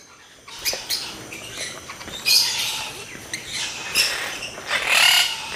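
Albino monk (Quaker) parakeets calling: a run of short, harsh squawks about a second apart, louder from a couple of seconds in.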